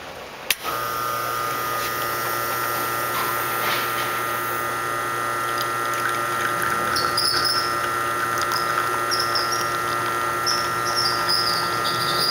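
A click about half a second in as the brew button is pressed, then the Expobar New Elegance espresso machine's pump starts and runs with a steady hum while it pulls a single shot. From about halfway through, faint irregular higher sounds come in over the hum.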